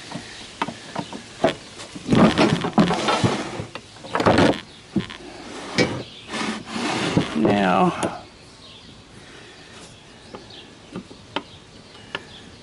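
Cast-iron jointer table and base parts knocking and scraping together as they are lifted and handled, loudest in the first half, with a few light clicks afterwards.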